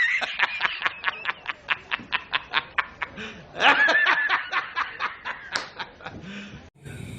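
High-pitched giggling: a rapid string of short laughs, about six a second, with a louder held note midway, tapering off near the end.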